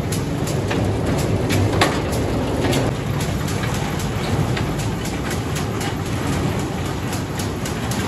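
Miniature ride-on passenger train running round a small circular track: a steady low rumble with regular sharp clicks from its wheels on the rails.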